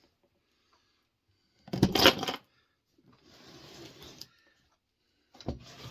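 Loose steel saw chain clinking and rattling as it is handled: a loud jangle of metal links about two seconds in, a softer sliding rustle, then more clicks near the end.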